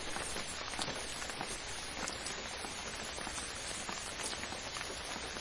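Steady rain falling on a surface, a dense even patter with many individual drop ticks.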